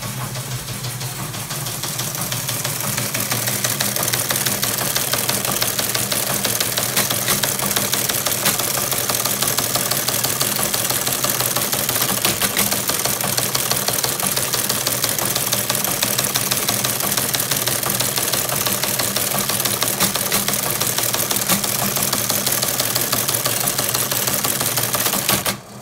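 Teletype Model 15 teleprinter printing received text at full speed: a rapid, even clatter of its type bars and printing mechanism over the steady hum of its motor, stopping abruptly near the end.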